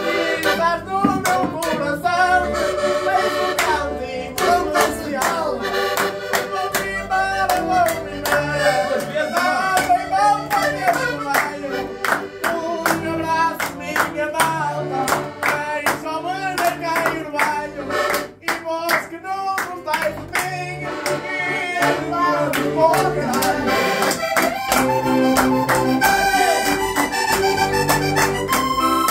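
Two diatonic button accordions (Portuguese concertinas) playing a lively folk tune together, with hand-clapping in time to the beat.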